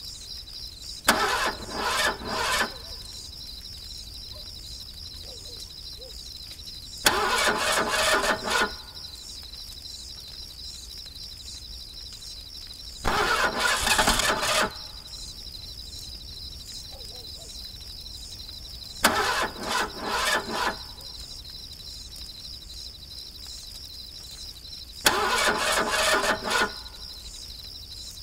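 An engine being cranked over and over without catching: five tries of about a second and a half each, spaced about six seconds apart, over a steady chorus of night insects.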